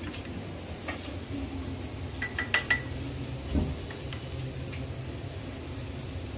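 A steel spoon clinking against a glass bowl while stirring cornflour, a few sharp ringing clinks about two to three seconds in and a duller knock soon after, over a low steady hum.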